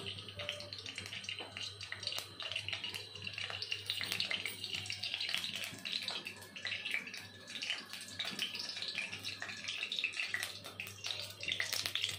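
Hot oil sizzling with irregular crackles around a single test piece of chopped onion in an aluminium kadai. The oil is not yet fully hot.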